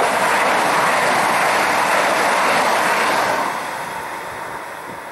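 Hellenic Train class 460 Siemens Desiro electric multiple unit passing close by at speed: a steady rush of wheel and air noise that fades away after about three seconds.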